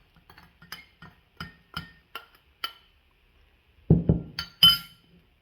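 A metal spoon clinking against a drinking glass, about five light ringing clinks over the first three seconds, as sugar is stirred into warm water. About four seconds in comes a dull knock, then two louder ringing clinks of spoon on glass, the loudest sounds here.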